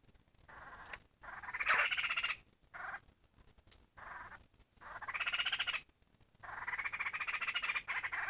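Laughingthrush (khướu) giving its 'kíu' call: a series of harsh, rattling calls, each about a second long, with short pauses between them. The last call runs on to the end.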